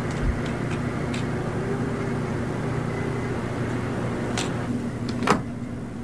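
Steady low machine hum with a few sharp clicks, the loudest about five seconds in.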